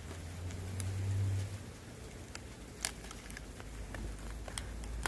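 Faint, scattered crackles and ticks from a bundle of birch bark tinder, over a low steady rumble.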